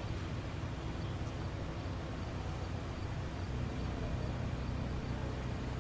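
Steady low rumble of a vehicle engine running, with an even background hiss.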